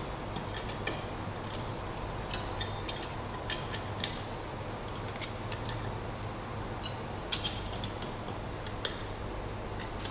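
Spanner tightening the bolts on a steel antenna mount bracket: irregular metallic clicks and clinks of the tool on the nuts, the loudest a close pair about seven and a half seconds in.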